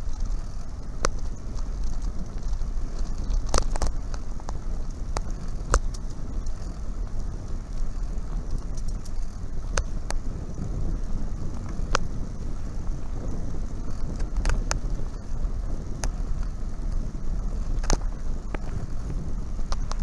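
Riding noise from a camera carried on a bicycle along an asphalt path: a steady low rumble of wind and tyres, with scattered sharp clicks and rattles every few seconds.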